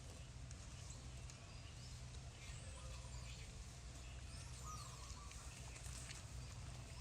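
Faint outdoor ambience: a steady low rumble with a few faint, short bird chirps in the middle.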